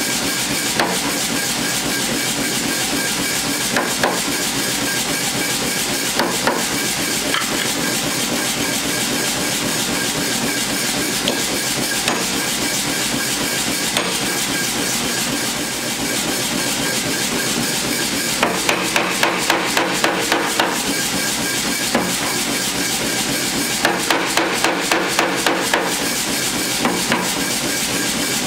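Power hammer striking glowing high-carbon steel through a steel top tool: single blows a few seconds apart, then two runs of quick blows, about three a second, over a steady loud running noise.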